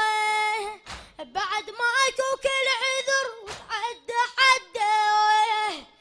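A boy reciter chanting a Shia latmiya lament unaccompanied into a microphone, in a high voice. He holds one long note at the start and another near the end, with shorter, moving phrases between.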